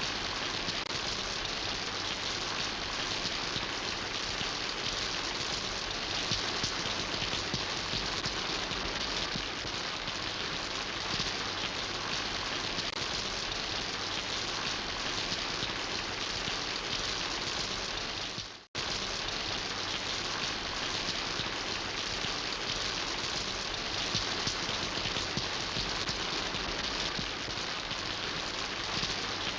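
Steady rain falling, a dense even patter of drops on a surface. About two-thirds of the way through it fades out sharply and cuts back in after a split second.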